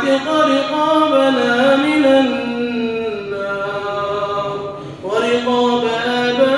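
A man's voice chanting an Arabic supplication in long, melodic held notes. There is a brief break about five seconds in before the next drawn-out phrase begins.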